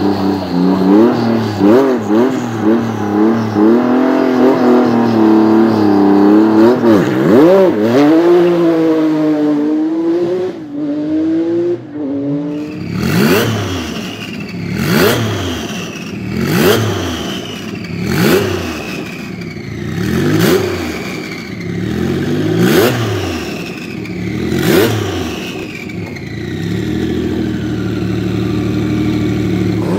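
Tuned Porsche 993 GT2 Evo's air-cooled twin-turbo flat-six running with a wavering, rising and falling engine note. About halfway through it changes to a series of seven sharp throttle blips about two seconds apart, each followed by a falling turbo whistle.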